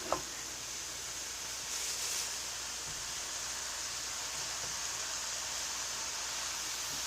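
Egg roll filling of meat, beans and carrots sizzling softly in a pan: a steady hiss, slightly louder for a moment about two seconds in.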